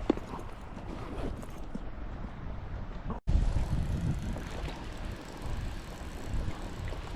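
Strong wind buffeting the microphone: a steady low rumble that cuts out for an instant a little over three seconds in.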